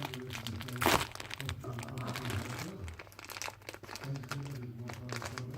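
Parcel packaging crinkling and crackling as hands struggle to open it, with one loud sharp crackle about a second in.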